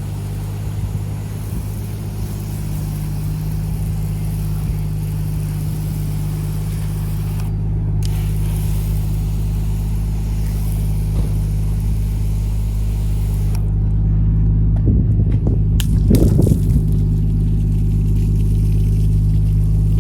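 Nissan Skyline R33's turbocharged RB25 straight-six running as the car is driven, a steady engine drone that slowly grows louder. A few sharper, louder sounds come about fifteen seconds in.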